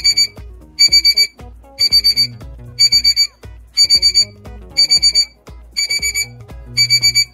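Alarm-clock-style beeping timer effect for quiz thinking time: a cluster of about four quick high beeps, repeated roughly once a second. Light background music with a bass line plays under it.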